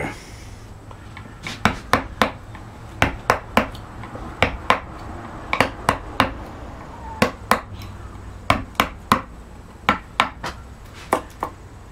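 Wooden mallet tapping a carving gouge as it cuts the background out of a carved oak panel: sharp knocks about two a second, in short runs with brief pauses.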